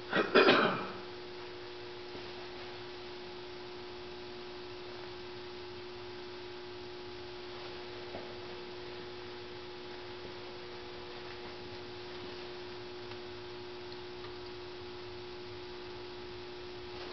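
A steady hum at one unchanging pitch, with a brief loud noise in the first second.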